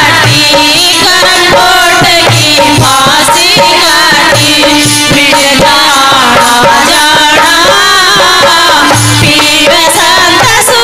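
Indian folk devotional music playing: a wavering, ornamented melody over a steady hand-drum rhythm.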